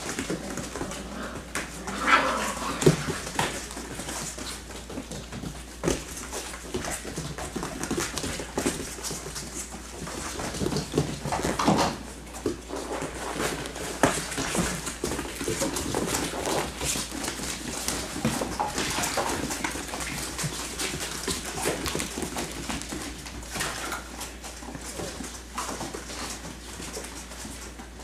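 Six-week-old Labrador Retriever puppies at play: small growls and whimpers come and go, with many quick clicks and scuffles as they move about.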